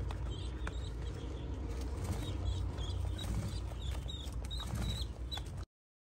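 Pigeon squab giving short, high squeaks while its parent feeds it beak-to-beak, over a steady low rumble. The squeaks come in quick succession in the second half, and the sound cuts off abruptly shortly before the end.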